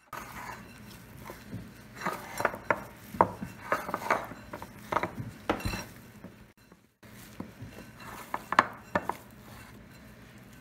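Hamburger-bun dough being kneaded by hand in a mixing bowl: irregular knocks and clicks as the bowl shifts on the granite counter and hands press into it, with soft slaps of the sticky dough.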